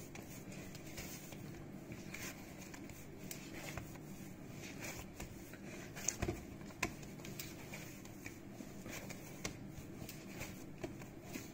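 Hands kneading a firm bread dough on a countertop while working in the salt: soft pats and squishes as the dough is pushed and folded, with a few sharper knocks about six seconds in.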